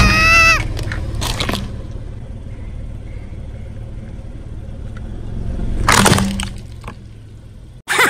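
Car tyre rolling slowly over a small object and crushing it, with the low rumble of the car throughout. Sharp cracks come about a second in, and a louder crunch about six seconds in. A short gliding cartoon sound effect plays at the very start.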